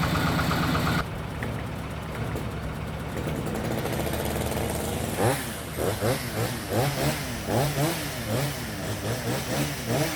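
Power tiller (walking tractor) engine running, its pitch sweeping up and down over and over in the second half.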